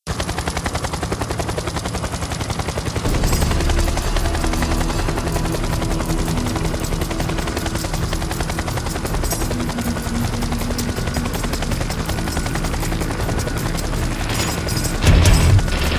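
Helicopter rotor chopping in a fast, even beat under background music, with loud sharp bangs like gunfire about fifteen seconds in.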